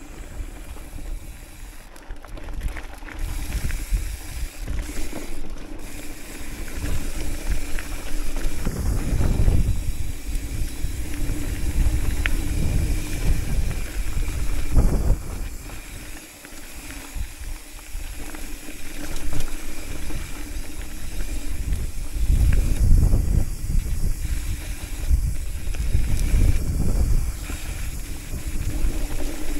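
Hardtail mountain bike riding fast down a dirt singletrack: a steady rush of tyre and wind noise, with low rumbling surges and scattered rattles as it runs over rough ground.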